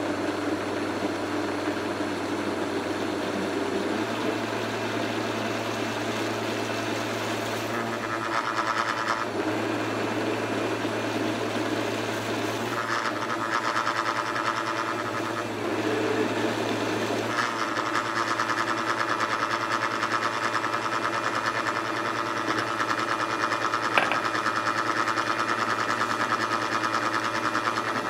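High-powered countertop blender motor running steadily while blending garlic aioli mayonnaise as olive oil is streamed in. Its tone shifts a few times as the mixture emulsifies, with one sharp click near the end.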